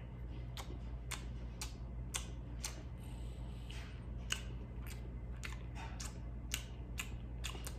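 A person chewing cornbread close to the microphone, with wet mouth clicks and smacks about twice a second, coming a little quicker in the second half.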